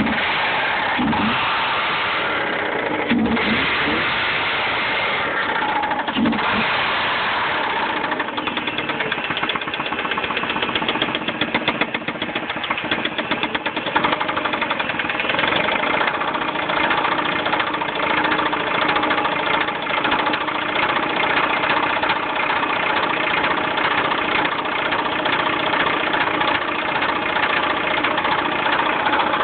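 Mazda 6 engine running with a loud, rhythmic rod knock, an even rapid knocking over the engine sound: the sign of a failing connecting-rod bearing.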